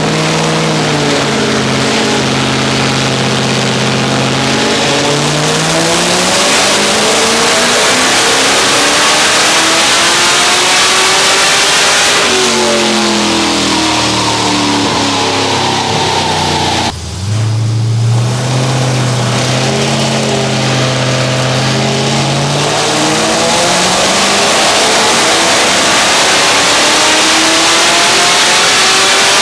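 Modified V8 of an HSV Clubsport wagon under full throttle on a chassis dyno, its revs climbing steadily for about ten seconds, then winding down. The sound drops out briefly about seventeen seconds in, then the revs climb again in a second pull.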